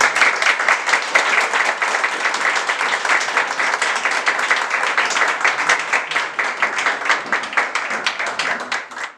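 A small audience applauding, a dense patter of many individual hand claps. It drops away sharply near the end.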